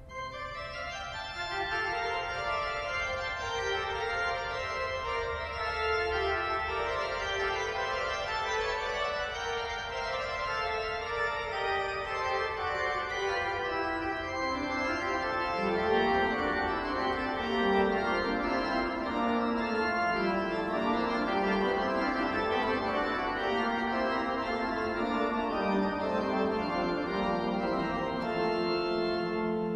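Church pipe organ playing sustained chords and lines. It begins softly in the upper and middle range, and lower, fuller notes come in about halfway through.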